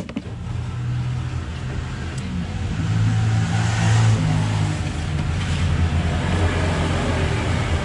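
A motor vehicle engine running close by, a steady low hum that grows louder over the first few seconds and then holds.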